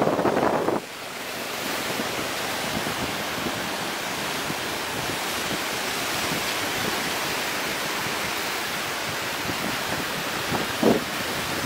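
Steady rush of ocean surf breaking on the beach, mixed with wind on the microphone. A louder, lower rush in the first second cuts off sharply, and there is a brief louder swell near the end.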